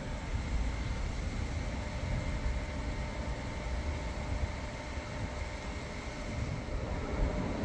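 Wind blowing across the microphone: a low, unsteady rumble, with a faint steady hum behind it.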